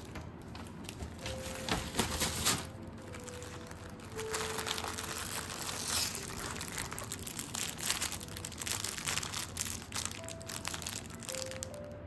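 Clear plastic snack wrappers crinkling as wrapped taiyaki are handled and pulled out of an organza drawstring bag, loudest about two seconds in.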